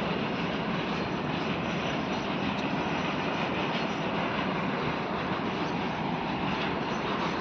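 Train running along the track: a steady, even rumble with no distinct wheel clicks.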